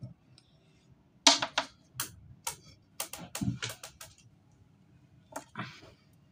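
Sharp clicks and clatters of small stones: decorative pebbles knocking on each other and on gravel as they are set in a terracotta pot. There is a quick run of them over the first few seconds, then two more near the end.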